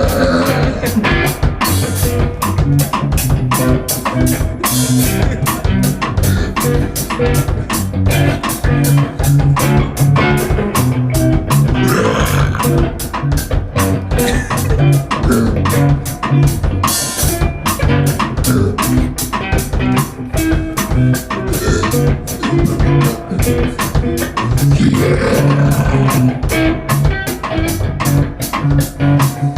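Band music with a drum kit keeping a steady beat under electric guitar and bass guitar.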